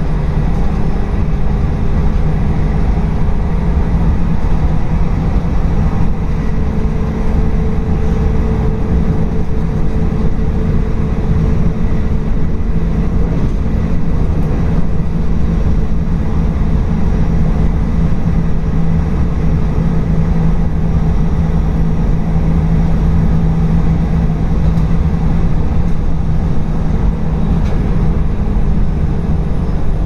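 Local train running along the line, heard from the front of the leading car: a steady rumble of wheels on rail with a low, steady hum from the train underneath it.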